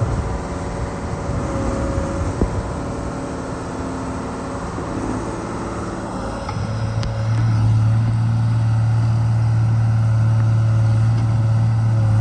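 Case 125B excavator's diesel engine running, with one sharp knock a couple of seconds in. About halfway through, the engine is throttled up and holds a louder, steady drone.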